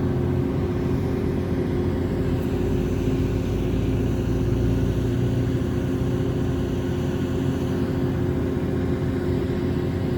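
Steady mechanical hum with a constant low rumble, unchanging throughout.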